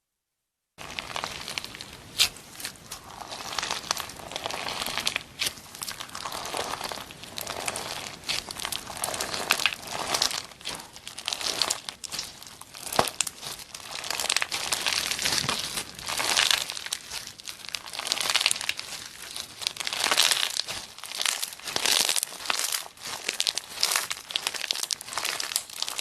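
Slime being squeezed and worked by hand, giving a continuous crackling and popping with frequent sharp clicks. It starts after a brief silence at the very beginning.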